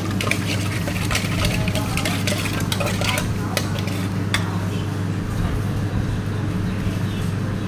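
A spoon stirring and tossing spicy pork salad in a bowl, with quick clinks and scrapes that thin out a little past halfway, over a steady low hum.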